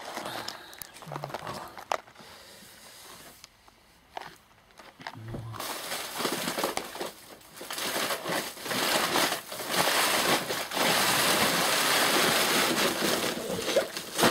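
Large stacked sacks being handled and shifted by hand: a dense rustling and crinkling that starts about six seconds in and grows loud, after a quieter stretch with a few knocks.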